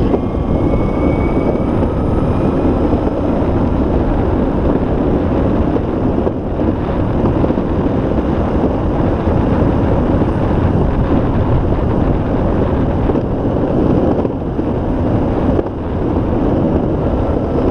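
Electric skateboard riding at speed along a paved path: a steady rolling rumble of the wheels on the pavement mixed with wind across the microphone, and a faint motor whine near the start.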